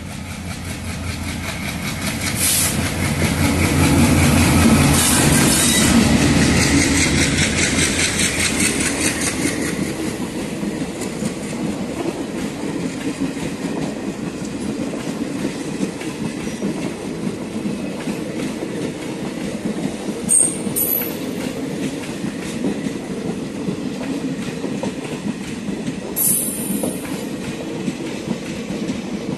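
Indian Railways Intercity express train passing at high speed. The locomotive goes by loudest a few seconds in, then the coaches run past with a steady rolling rumble and clickety-clack of wheels over the rail joints. Near the end the wheels give two brief high-pitched squeals.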